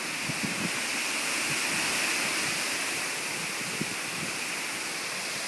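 Heavy rain pouring down hard in a storm, a steady hiss with a few faint low knocks.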